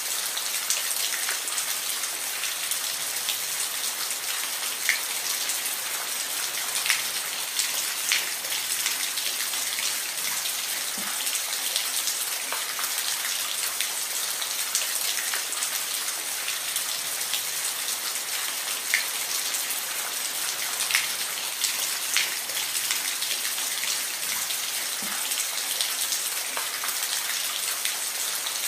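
Steady rain falling, a constant hiss with individual drops ticking here and there.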